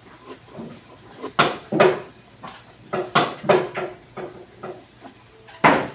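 Sharp clacks of billiard play, several in pairs about half a second apart: the cue tip striking the cue ball, then the cue ball hitting another ball.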